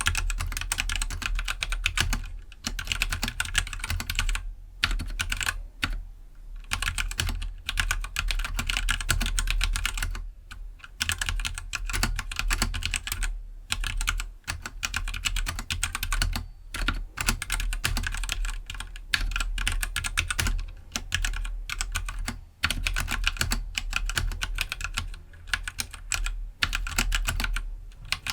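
Typing on a stock Keydous NJ68 65% mechanical keyboard with Gateron Black linear switches: fast, continuous runs of keystrokes broken by brief pauses.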